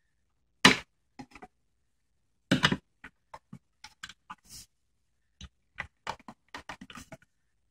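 Clicks and knocks of plastic parts as a CD-ROM drive is handled and pried apart: two louder knocks, then a run of small quick clicks.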